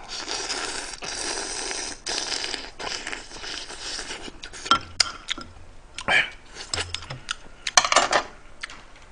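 Close-up eating of seafood ramen: a long noisy slurp and suck over the first few seconds, then chewing with scattered sharp clinks of metal chopsticks against the pot.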